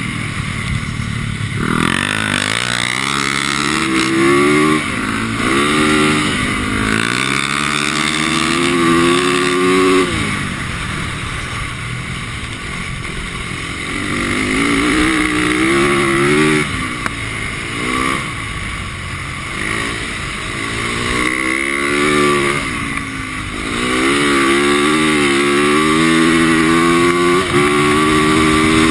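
Single-cylinder 450cc four-stroke dirt bike engine revving as the bike is ridden on ice. The pitch climbs and drops again and again as the throttle is opened and closed, then holds high near the end.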